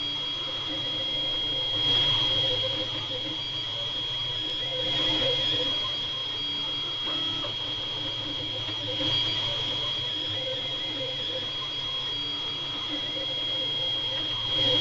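FDM 3D printer running mid-print: a steady high whine over a low hum, swelling briefly every few seconds as the print head moves.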